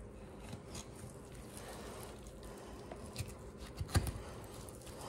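Quiet knife work on a raw deer hind leg: faint wet squishing and small clicks as the muscles are pulled and cut apart, with one louder knock on the wooden cutting board about four seconds in.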